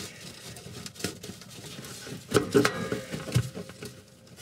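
Small clicks, scrapes and knocks of a gloved hand pulling spade connectors off a fan-oven heating element's terminals: a click about a second in, a few in quick succession around halfway, and another shortly after.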